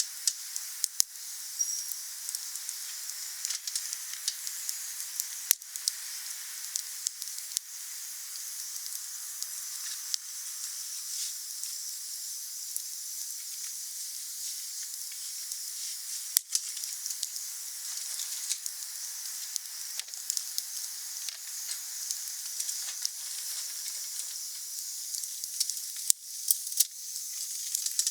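Wood fire burning with a steady hiss and frequent sharp crackles and pops from the burning wood.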